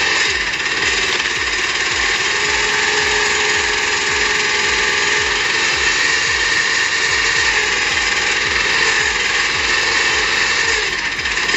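Heavy machinery running steadily with a rapid, regular pulsing, about six beats a second.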